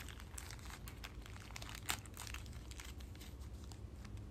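A clear plastic packaging bag being opened by hand: a scatter of faint crackles, with one sharper crackle about two seconds in.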